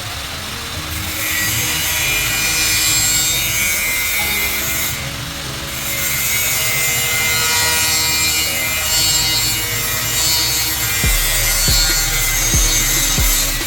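A scraping, hissing working noise in two long bouts with a short break between, typical of a tool being worked back and forth over a part, and a few low knocks near the end.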